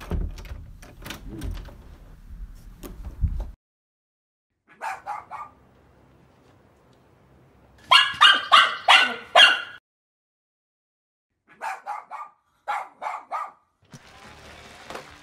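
Dogs barking in several short bursts, the loudest a quick run of about six barks midway, after a stretch of low rumbling with a few knocks at the start.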